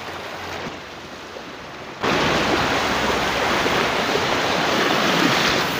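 River water rushing and splashing over rocks in shallow rapids, a steady rush with no distinct strokes; about two seconds in it suddenly becomes much louder.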